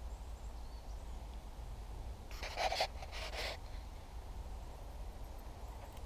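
Outdoor ambience with a steady low rumble, and a brief harsh sound in two parts about two and a half seconds in.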